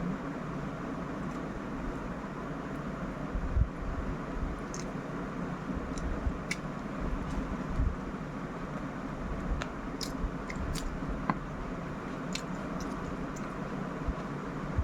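A person chewing and eating, with scattered short wet clicks and smacks over a steady background hum.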